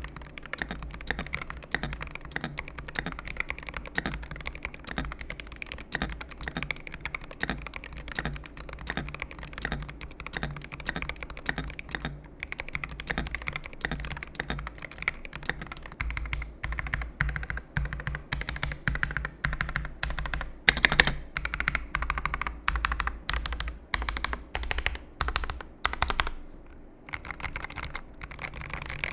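Typing on a Keychron V3 mechanical keyboard with light switches and OSA-profile keycaps: a steady, clacky but fairly quiet patter of keystrokes. In the second half it turns to slower, more separate and louder presses.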